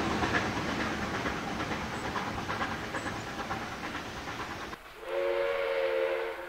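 Rumble and clickety-clack of a passing steam train, dying away. Then, about five seconds in, the Baldwin-built 59 class steam locomotive 5917 sounds its whistle, one chord of several notes held for about a second.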